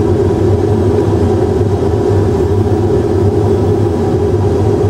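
Steady simulated airliner cockpit noise in an Airbus A320 full flight simulator: a constant engine and airflow drone with no change in pitch.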